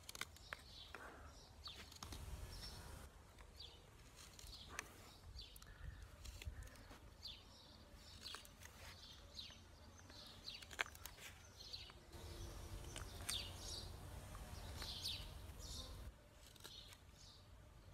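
Knife blade whittling a thin wooden stick: short, faint scraping cuts and clicks as slivers are shaved off the wood, with birds chirping in the background.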